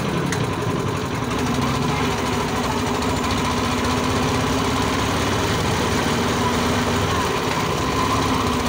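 Small engine running steadily with a constant low drone and some rattle, heard from on board a moving tricycle.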